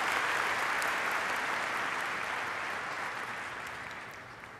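Audience applauding, the clapping fading away gradually.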